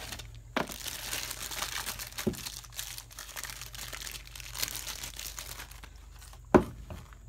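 Clear plastic bag crinkling as a new ignition coil is pulled out of it. A few sharp knocks come through the crinkling, the loudest near the end.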